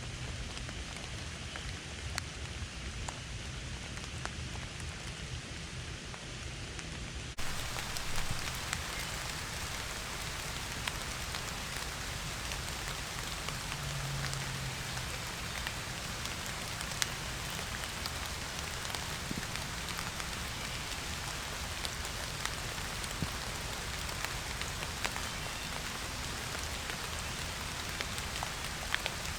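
Steady rain falling on the surroundings, with scattered single drops ticking close by. About seven seconds in it suddenly gets louder and brighter.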